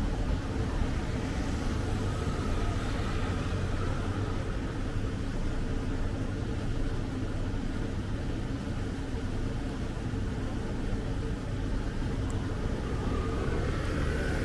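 Steady low rumble with a faint hiss above it, level throughout.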